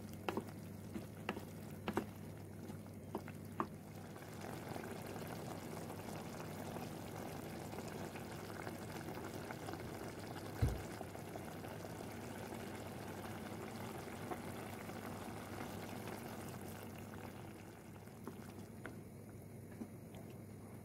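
Diced tomatoes simmering in a pot with a steady bubbling sizzle. A wooden spoon clicks against the pot while stirring in the first few seconds and again near the end, and there is one low thump about ten seconds in.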